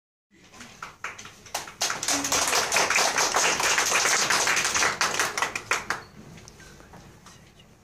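A roomful of people applauding: a few scattered claps at first, swelling into steady clapping, then dying away about six seconds in.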